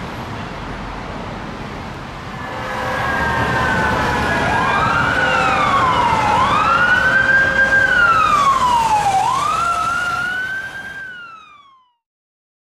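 Road traffic noise, then an emergency vehicle siren swells in and wails in slow rising and falling sweeps before fading out near the end.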